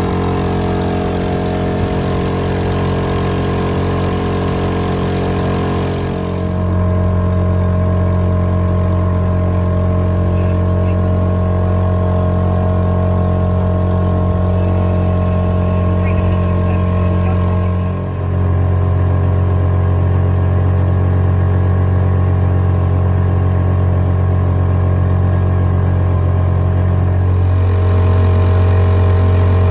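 Honda 2.3 hp single-cylinder four-stroke auxiliary outboard running steadily, driving the boat under way on its own. The drone shifts slightly in pitch and loudness twice.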